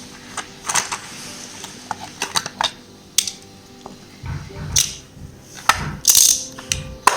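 Short plastic clicks and knocks of Hot Wheels toy cars being handled and set into the compartments of a plastic toy truck carrier, with low dull handling thumps from about four seconds in.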